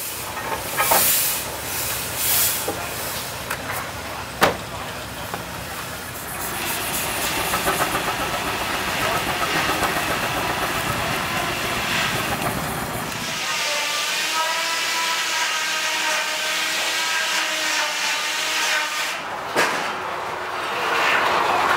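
Steam traction engines hissing steam, with sharp bursts of high hiss. About two-thirds of the way through, a steady pitched whine with several tones takes over, wavering slightly in pitch.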